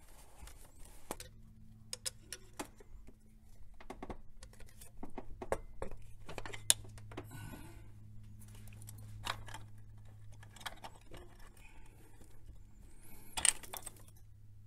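Hand work on an automatic transmission filter housing: scattered clicks and light metallic knocks as a rag is tucked in and the filter cap is worked loose, sharpest about halfway and near the end. A steady low hum sets in about a second in.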